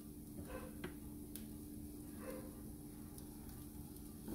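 Quiet kitchen: a steady low hum with a few faint clicks and taps as a glass blender jar is picked up and handled.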